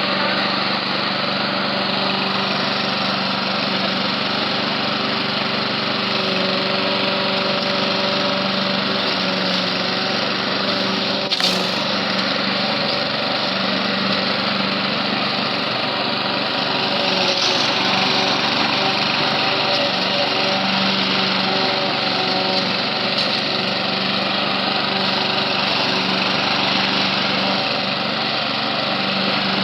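Husqvarna lawn mower's small engine running at a steady speed, with one sharp knock about a third of the way through.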